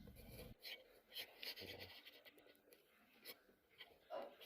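Near silence, with faint scratching and a few light clicks of small parts being handled.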